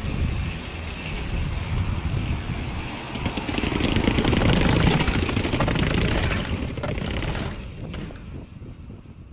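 A mountain bike clattering down a flight of outdoor stairs: tyres thumping on the steps and the chain and frame rattling fast, over steady rushing wind noise on the camera microphone. The clatter is loudest in the middle, then the sound fades away near the end.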